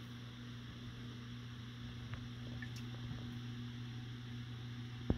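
A steady low electrical or mechanical hum over faint room hiss, cut off abruptly by a click near the end.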